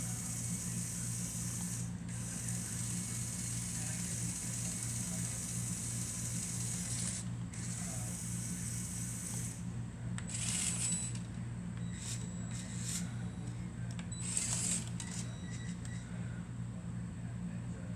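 Small electric motors and plastic gears of a LEGO Technic remote-controlled forklift whirring in spells, over a steady low hum. The whirring stops briefly a few times, and there are two louder bursts with a high whine about ten and fourteen seconds in.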